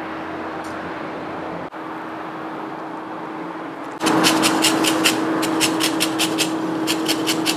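Lemon being zested on a fine grater: quick, short scraping strokes, about five a second, starting about halfway through, over a steady electrical hum.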